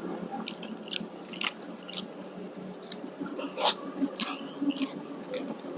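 Close-miked chewing and mouth sounds of a person eating curry and rice: wet smacks and small crisp clicks several times a second, one louder bite near the middle.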